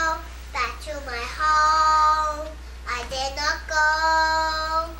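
A young child singing, holding two long steady notes with short sliding phrases between them.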